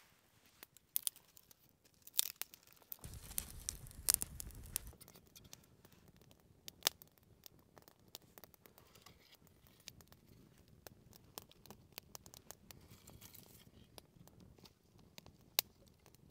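Small kindling fire of split sticks crackling, with scattered sharp pops and snaps as it catches. Sticks are laid onto it, and a low rumble lasts about two seconds near the start.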